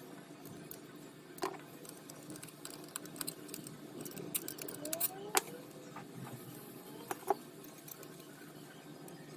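Scattered light clicks and taps of small hard parts being handled, loudest three times, over a low steady hum.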